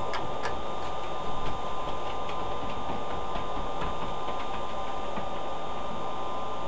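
Audichron STM-100M-T talking clock running between announcements: a steady machine hum with light, irregular ticking and clicks, two sharper clicks just after the start.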